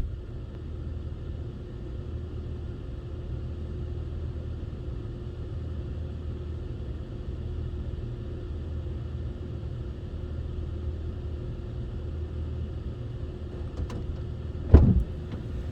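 Car engine idling steadily, a low rumble with a faint even hum above it. A single loud thump sounds near the end.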